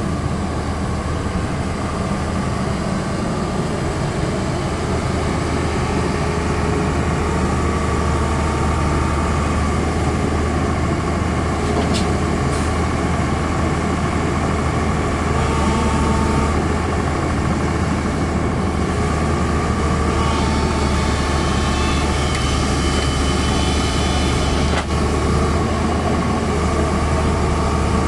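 Hyundai Smart 210 crawler excavator's diesel engine running steadily at close range, a constant low drone.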